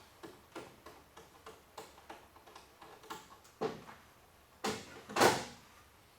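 Light metallic clicks of hand tools and hardware being worked at a bolt, about three a second, then a few louder knocks, the loudest about five seconds in.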